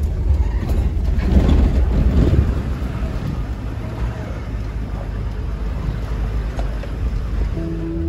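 A car driving along a road: a steady low rumble of engine and road noise, louder for a moment about a second in, then easing. Music comes in near the end.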